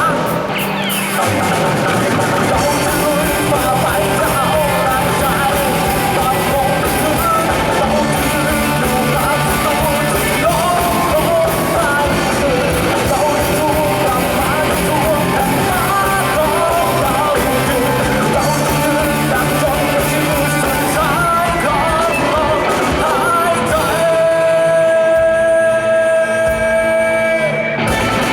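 A rock band playing a song with a singer. Near the end, one long note is held for about four seconds.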